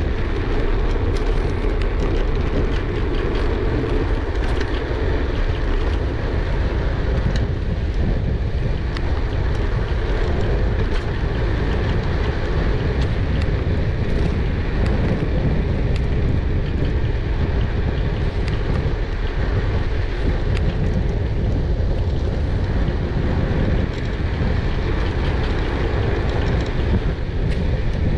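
Wind buffeting the microphone of a GoPro Hero 8 carried on a moving e-bike: a steady low rumble, with faint light ticks and rattles over it.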